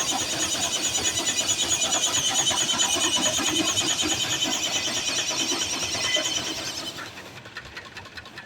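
Steam-powered sawmill running, with a high, fluttering whine of the saw over the clatter of the mill. It dies down about seven seconds in.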